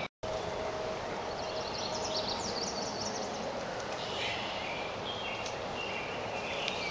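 Steady outdoor background noise with birds chirping now and then, in clusters about a second and a half in and again from about four seconds in.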